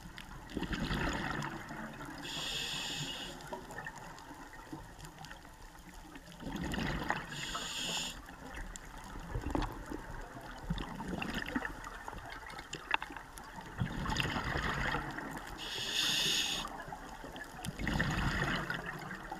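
Scuba regulator breathing underwater: about four breath cycles, each a burst of exhaled bubbles gurgling past the mouthpiece and a short hiss of air on the inhale.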